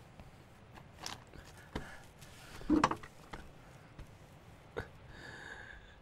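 A distressed man's sobs and catches of breath, the strongest about three seconds in, with a few small clicks and knocks as he moves.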